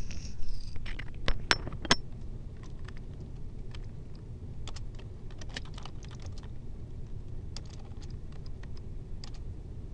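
Typing on a computer keyboard: irregular keystroke clicks, a few louder ones in the first two seconds, then lighter scattered taps. A low steady hum lies underneath.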